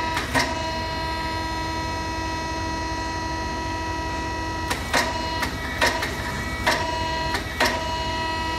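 Pneumatic soap stamping machine running with a steady whine, broken by several short sharp noises from about five seconds in as its controls are worked.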